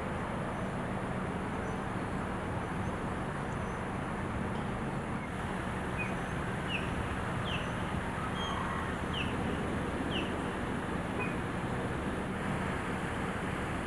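Steady outdoor background noise with a constant low hum, and a few faint, short high chirps in the middle.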